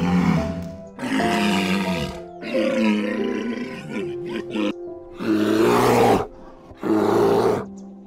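A walrus bellowing in a series of about five rough, roaring calls, each around a second long, over background music.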